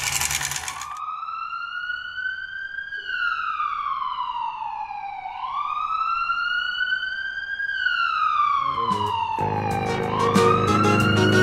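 A siren wailing, its pitch slowly rising and falling, one full up-and-down about every five seconds. Children's music comes back in under it near the end.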